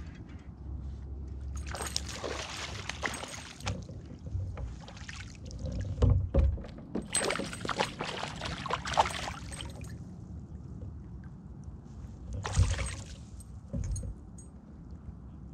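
A hooked fish thrashing and splashing at the surface beside a kayak, in three bursts with the longest in the middle, along with a few dull thumps.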